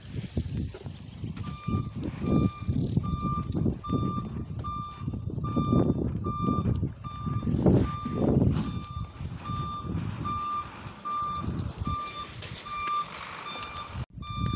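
An electronic warning beeper, like a vehicle's reversing alarm, sounding a short high beep about twice a second. It starts about a second and a half in and stops near the end, over an uneven low rumble.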